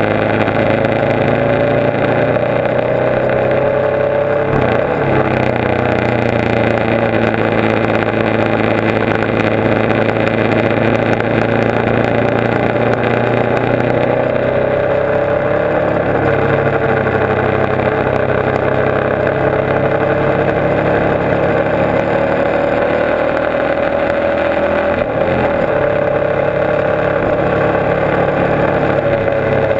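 Motorcycle engine running at road speed, heard from on the bike with wind rushing over the microphone. The engine note rises and falls gently and breaks briefly about five seconds in and again about 25 seconds in, as with gear changes.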